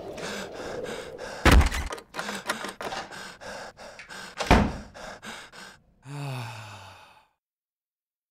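Mixed film sound effects: two heavy thuds about three seconds apart with a run of sharp knocks and clicks around them, then a short low groan falling in pitch that cuts off suddenly into silence.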